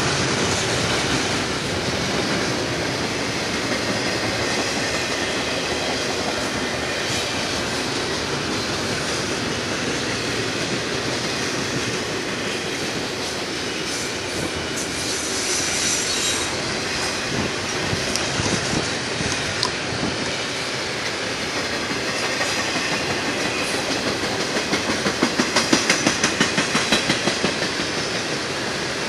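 Double-stack intermodal container cars rolling past on the rails, a steady rumble and rattle of steel wheels. A brief high wheel squeal comes about halfway through, and near the end, as the last cars pass, a run of rhythmic clacks of wheels over rail joints.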